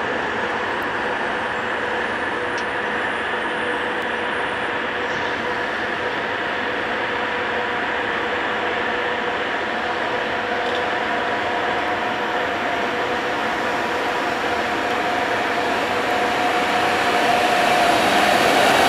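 Siemens Vectron electric locomotive drawing a passenger train slowly into a station: steady rolling noise with a steady whine, growing gradually louder as it nears.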